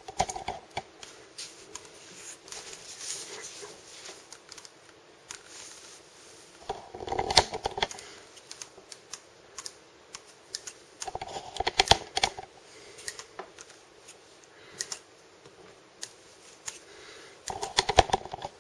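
Handling noise from hands gripping a handheld digital fishing scale and a cloth wrapped around the fishing line: clicks, scrapes and cloth rustling in short bursts a few seconds apart.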